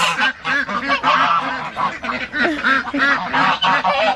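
Domestic geese honking, a rapid run of short calls several times a second.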